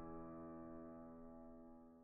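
Background music fading out on one held chord that slowly dies away.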